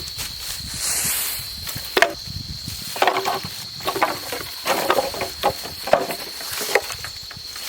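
Wood being chopped with a blade: a series of irregular sharp blows, several in quick succession in the middle.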